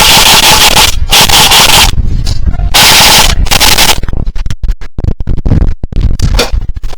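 Airsoft electric rifle firing in bursts, recorded by a gun-mounted action camera, with heavy wind buffeting on its microphone: a dense rush of noise for the first few seconds, then quick runs of sharp mechanical clicks.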